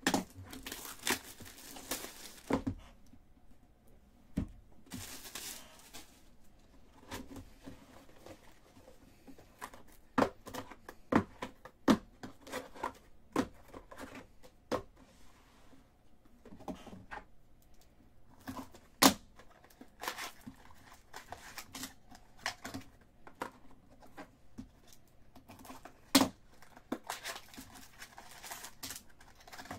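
Cardboard trading-card box being opened by hand: seals and wrapping tearing, packaging crinkling, and many scattered light taps and clicks of cardboard being handled, with longer tearing noises near the start and about five seconds in.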